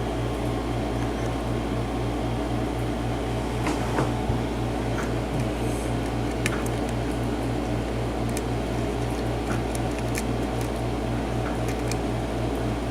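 A steady machine hum with a low pulse about four times a second runs through, over a few faint, scattered metallic ticks of a lock pick and tension wrench working the pins of a pin-tumbler cylinder.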